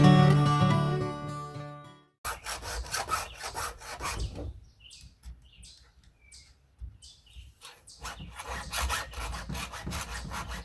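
Guitar music fades out. Then a chainsaw chain is hand-filed with a Stihl file sharpener: runs of quick rasping file strokes across the cutters, with a pause between the two runs.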